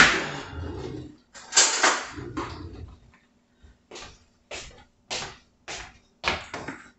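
Kitchen utensil sounds: a sharp knock, then a clatter as a spoon is fetched, followed by a run of short scraping strokes about every two-thirds of a second.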